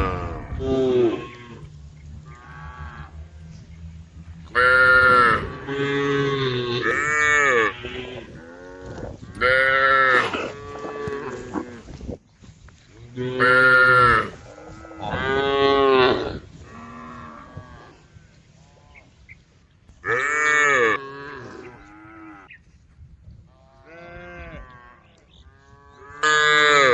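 Cows mooing over and over: loud, drawn-out moos that rise and fall in pitch come every few seconds, with fainter moos in between.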